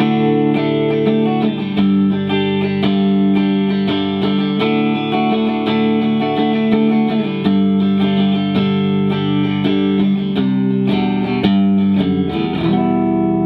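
Telecaster electric guitar played with both pickups on together in parallel, the familiar middle-position sound: a run of picked chords and single notes, ending on a chord left to ring.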